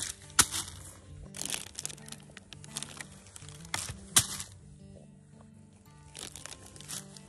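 Plastic bags of tulip bulbs crinkling in a gloved hand in several short rustles, with two sharper cracks, one about half a second in and one about four seconds in as a tossed bag lands on the mulch. Background music plays throughout.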